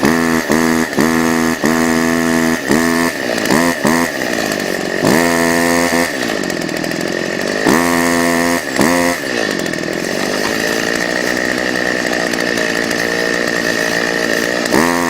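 Chainsaw revved again and again in short bursts, then two longer revs, settling into a steady run for the last third, with the bar jammed in a cut pinched by the tree's weight.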